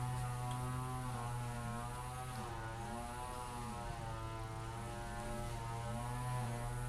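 A steady droning hum with a stack of overtones, its pitch wavering slowly up and down.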